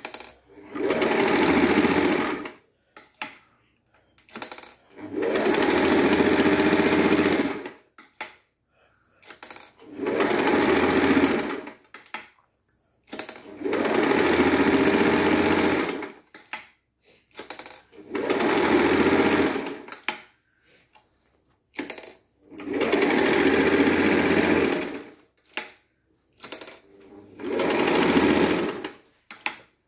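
Singer 315 electric sewing machine stitching fabric in short runs: seven bursts of two to three seconds each, stopping and starting, with light clicks in the short pauses between them.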